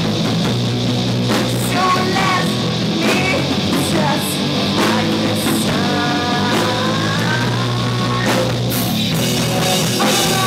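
Rock band playing live: drum kit and electric guitar in a loud, steady instrumental passage, with guitar lines that bend in pitch.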